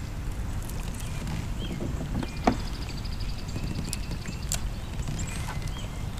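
Sounds from a fishing kayak on the water: a steady low rush of wind and water, with a sharp knock about two and a half seconds in and a few lighter clicks, and short high chirps above.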